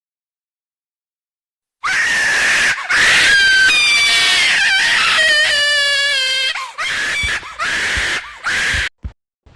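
Near silence for about two seconds, then loud, shrill screaming in a string of long cries with a wavering, bending pitch, broken by short gaps, stopping shortly before the end.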